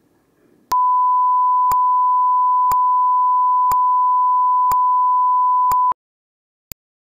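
A steady electronic test tone, one pure beep held for about five seconds, with a sharp click each second. It starts just under a second in and cuts off suddenly, and one more lone click follows about a second later.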